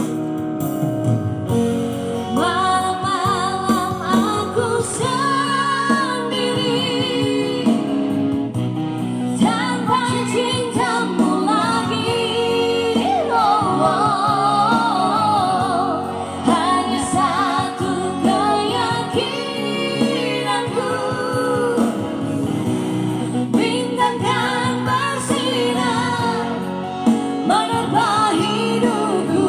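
A woman singing an Indonesian pop ballad with vibrato over instrumental backing that includes guitar; the voice comes in about two seconds in after a short instrumental stretch.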